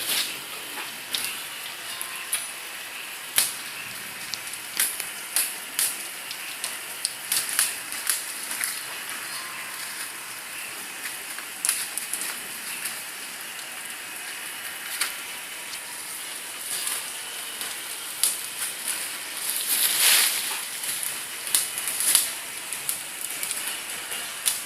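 Irregular sharp crackling and rustling of plastic and paper over a steady high hiss, as a peeling machine strips laminated noblen sack material.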